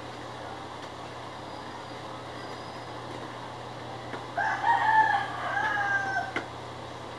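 A rooster crowing once, about four seconds in, a pitched call lasting about two seconds, over a steady low background hum.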